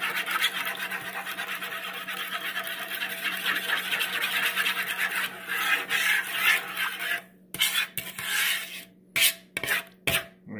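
Metal spoon stirring a thick liquid marinade in a mixing bowl, scraping steadily against the bowl's bottom and sides. About seven seconds in, the stirring breaks into a few separate scrapes and clinks with short pauses between them.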